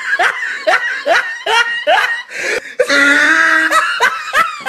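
People laughing hard in short repeated bursts, with a long, high held laugh about three seconds in.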